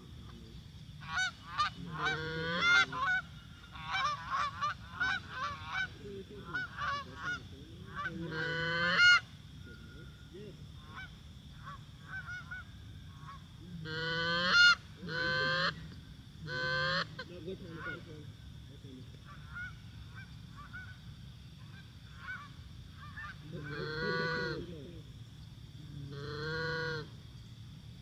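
Canada goose honks and clucks: a quick run of short clucks and honks through the first nine seconds, three loud honks in the middle, and two longer honks near the end. A steady high insect trill runs underneath.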